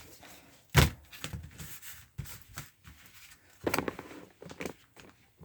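Small paper Pokémon card booster packs being handled: a sharp knock about a second in, scattered light taps and rustles, and a short cluster of knocks about four seconds in.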